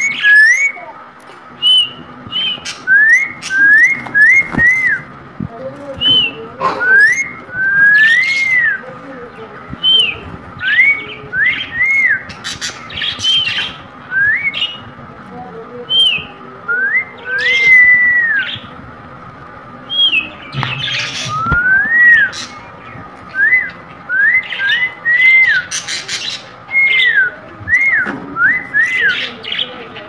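Rose-ringed parakeet giving short whistled calls, each one rising and then falling in pitch, repeated one or two times a second, with sharp clicks and harsher squawks between them.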